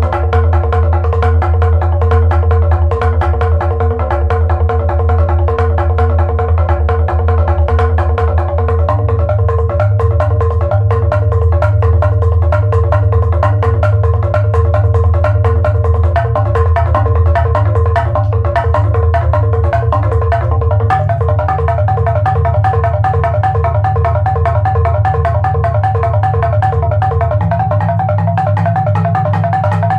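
Minimal percussion music: a fast, steady run of repeated mallet-struck notes over a sustained low drone. The drone steps up in pitch three times, about a third of the way in, about two-thirds in and near the end.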